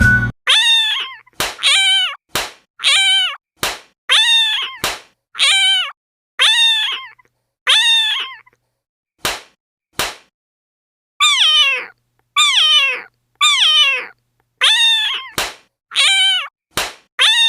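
A cat meowing again and again, about fifteen short high meows that each fall in pitch, with sharp clicks between some of them and a pause of a few seconds in the middle.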